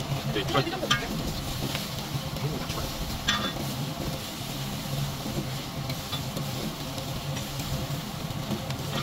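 Beef intestines sizzling steadily on a charcoal grill's wire mesh, with a few metallic clicks of steel tongs and scissors against the grate, one with a short ring about three seconds in.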